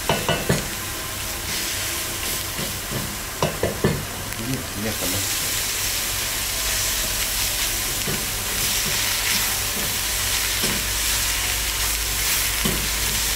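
Chopped onion sizzling in butter, ghee and oil in a pot while a spatula stirs it, with a few sharp knocks of the spatula against the pot near the start and again about three and a half seconds in. The onion is being lightly sautéed just until it softens, not browned.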